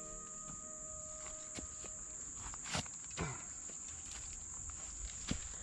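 Steady, high-pitched insect chorus, likely crickets, droning without a break. A few soft scuffing steps in dry leaf litter come about three seconds in and again near the end.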